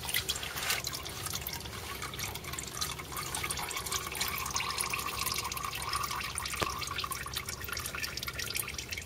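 Used engine oil draining from a Toyota Prius in a thin stream, trickling and dripping steadily as the crankcase empties.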